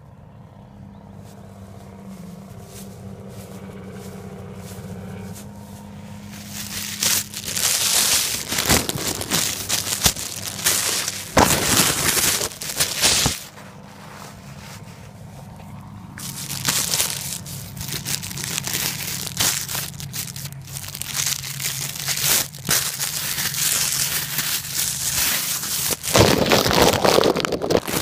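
Crinkling, rustling noise in two long spells, the first starting about seven seconds in and the second from about sixteen seconds on, over a steady low hum.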